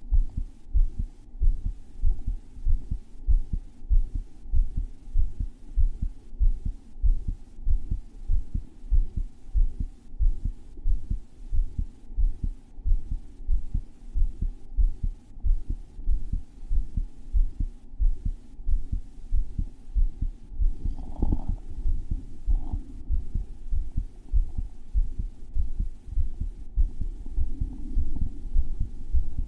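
A man's heart beating hard, close-miked through a microphone strapped against his chest: a steady, regular run of deep thumps. A couple of brief extra noises come about two-thirds of the way through.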